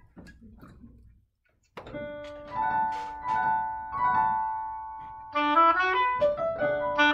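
Piano and clarinet duet: after a second or so of faint small noises, the piano starts with a few struck chords, and the clarinet enters about five seconds in with a mostly rising run of notes over them.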